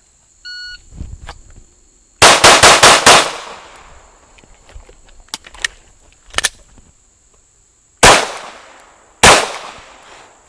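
A shot-timer beep, then a rapid string of five handgun shots, then after a pause two more single shots about a second and a half apart. This is the five-plus-two of a timed drill: five close-range shots, then two from further back. Insects buzz steadily underneath.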